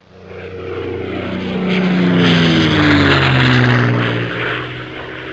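Airplane flyby sound effect: an aircraft engine swelling in as it approaches, then fading with a falling pitch as it passes.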